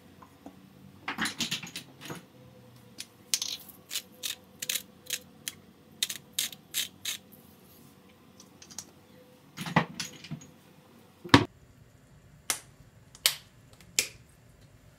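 Sharp clicks and taps from spice containers being handled while seasoning, several in an even rhythm of about two a second, with two heavier knocks about ten and eleven seconds in and three more clicks near the end.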